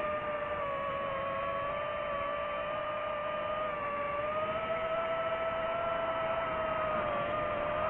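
DJI FPV drone's motors and propellers whining steadily, the pitch wavering a little up and down, over a hiss of air noise.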